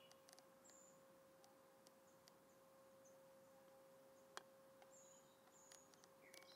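Near silence: a faint steady tone throughout, with a few faint high bird chirps and one brief faint click a little over four seconds in.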